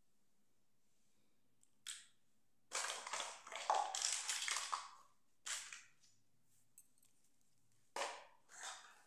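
Small plastic toy pieces being handled and set down on a hard surface: a short clack, then about two seconds of dense plastic rattling and rustling, and a few more short clacks near the end.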